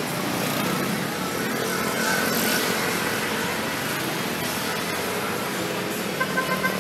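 Steady street traffic noise, with four quick beeps near the end.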